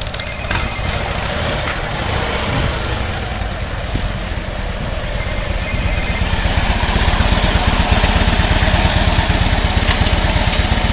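Harley-Davidson Electra Glide's V-twin engine running steadily with a fast, even pulse, getting a little louder about halfway through.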